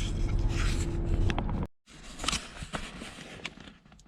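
Steady low rumble of a car in the parked vehicle, cut off abruptly about a second and a half in; then a much quieter stretch with a few light clicks and rustles.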